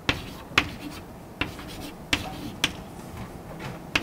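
Chalk writing on a blackboard: a string of sharp chalk taps, about seven, with faint scratching strokes between them.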